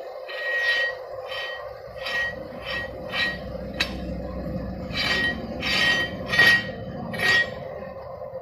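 Homemade firecracker gun's steel rod and metal pipe scraping and clinking against each other as the rod is worked back and forth: about ten short metal scrapes, each with a faint ring, and one sharp click near the middle. A steady low hum runs underneath.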